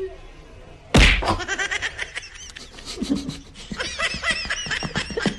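A sharp thud about a second in, then a person laughing in quick repeated bursts.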